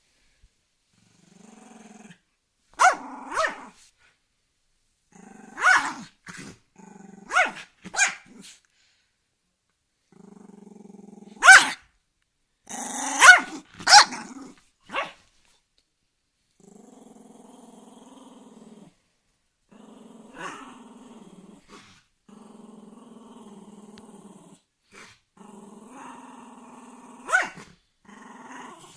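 West Highland White Terrier growling in long, low rumbles, broken by sharp barks: two about three seconds in, a few more around six to eight seconds, a loud cluster around twelve to fourteen seconds, and one more near the end.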